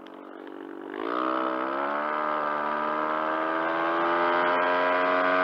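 Yamaha TMAX 500 maxiscooter's parallel-twin engine accelerating under throttle: the engine note climbs, jumps up sharply about a second in, then holds a high, nearly steady pitch that creeps slowly upward.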